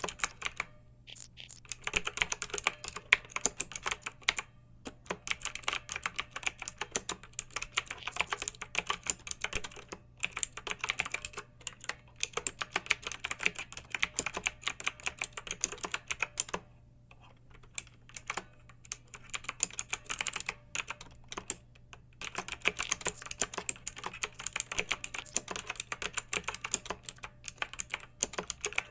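Typing on a computer keyboard: rapid runs of key clicks broken by short pauses, with a longer pause in the middle.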